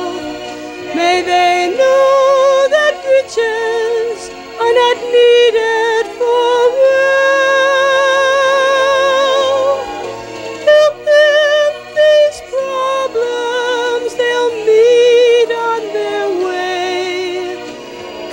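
A woman singing a sentimental wedding-blessing song into a microphone, with a strong vibrato and long held notes.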